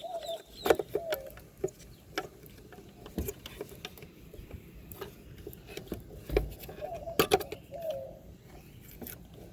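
Irregular plastic clicks and knocks as a 2011 Dodge Challenger's taillight bulb socket is twisted hard and worked loose to remove the rear turn-signal bulb.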